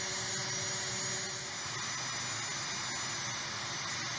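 Steady flightline background noise: an even hiss with a faint, thin high-pitched whine running through it.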